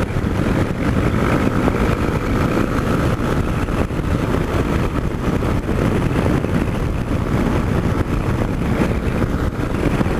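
Yamaha Ténéré motorcycle riding at steady road speed: the engine runs under a continuous rush of wind and road noise.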